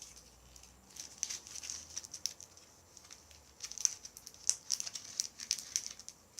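Plastic packaging of a slime container crinkling and crackling irregularly as hands try to open it.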